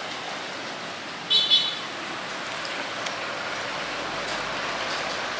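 Steady street noise, an even hiss with passing traffic, broken about a second and a half in by a short high-pitched squeal in two quick pulses.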